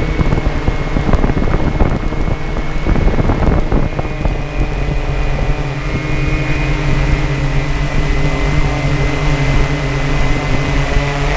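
Ghost quadcopter drone's motors and propellers running with a steady hum and whine, with wind noise on the microphone.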